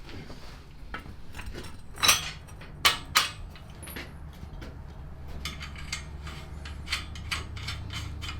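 Metal-on-metal clinks and knocks as steel fork tubes are worked into tight-fitting triple-tree clamps, the three loudest about two to three seconds in, over a steady low hum.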